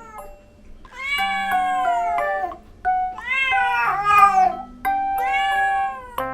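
Female Siamese-mix cat in heat yowling: repeated long, drawn-out calls whose pitch bends, the loud caterwauling of a queen in estrus. Background music plays under the calls.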